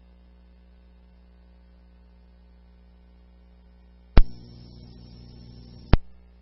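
A two-way police radio channel keyed up with no voice: about four seconds in, a sharp click as the transmission opens, a hissing, humming open carrier for just under two seconds, then a sharp click as it drops. A steady low hum runs underneath.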